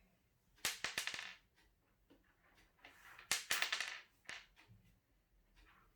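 Small magnetic balls clicking as they snap together, in two quick rattling clusters of sharp clicks with a few single clicks between.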